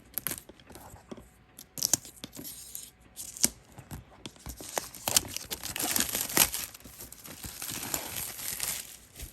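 Plastic wrap being torn off a product box and crumpled, crinkling and rustling with scattered sharp rips, denser crinkling over the second half.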